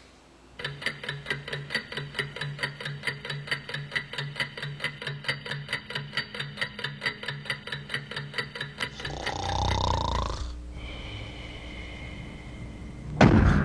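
A clock ticking fast and evenly, about four to five ticks a second, which stops after about nine seconds. A brief rising sound with a low rumble follows, and near the end there is one sudden loud bang.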